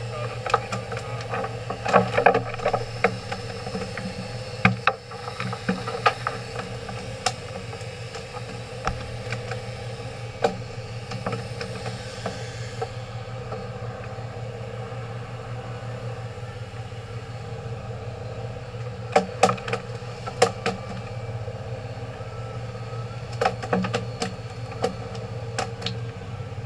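Fishing boat's engine running steadily at idle, with scattered sharp knocks and clatters on the deck.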